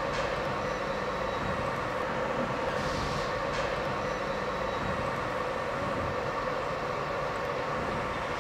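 Steady mechanical whir of a fiber laser marking machine running.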